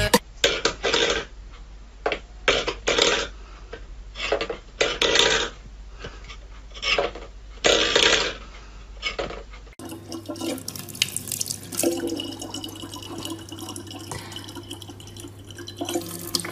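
Metal food bowls clattering and knocking on a wooden floor in a string of sharp hits. Then, for the last six seconds or so, a tap runs a thin, steady stream of water into a plastic bottle.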